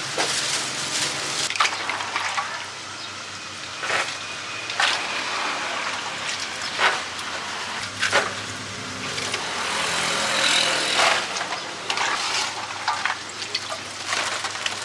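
Street-stall handling noise: scattered clicks and clatters as green pods are scooped up and poured into a plastic basket, over a steady background of street traffic.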